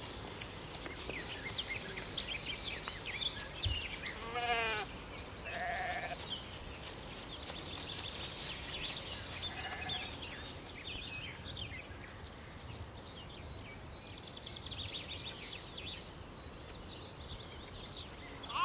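Gotland sheep bleating: one long quavering bleat about four seconds in, a shorter bleat a second later and a faint one near the middle, over a steady outdoor background.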